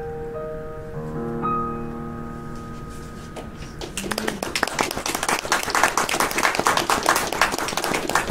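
Yamaha electric keyboard set to a piano sound, playing the last held chords of a piece, which ring on and die away. About four seconds in, an audience breaks into applause.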